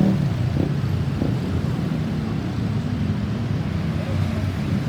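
Steady low rumble of road traffic: a motor vehicle's engine running, with no siren sounding.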